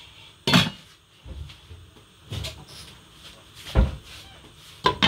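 Saucepan lids being handled and set down on cooking pots: an aluminium lid settling onto an aluminium pot and a glass lid moving. Four short clinks and knocks, the loudest just under four seconds in.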